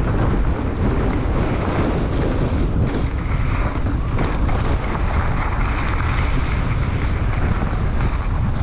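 Mountain bike rolling fast down a gravel dirt trail: steady wind rush on the GoPro's microphone with a low tyre-and-trail rumble and a few sharp clicks from the bike.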